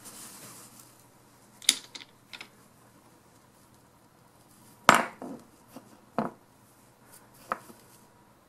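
Small metal parts of a taken-apart torque wrench ratchet head clinking and knocking as they are handled and fitted together: a handful of separate sharp clicks, the loudest about five seconds in, after a brief rustle at the start.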